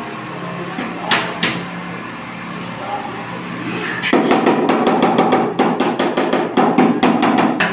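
Rubber mallet tapping a large wall tile to bed it into the tile adhesive. There are a couple of single knocks just over a second in, then rapid taps, several a second, from about four seconds in.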